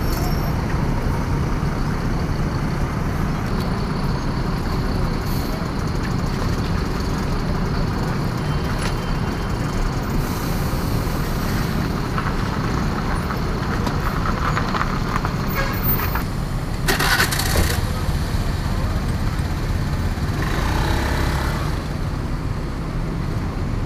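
Intercity coach bus's diesel engine running with a steady low rumble as the bus pulls away slowly, with a short hiss of air about two-thirds of the way through.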